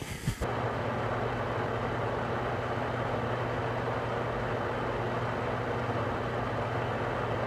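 Bosch oven's convection fan running: a steady mechanical hum with a low tone that starts abruptly about half a second in.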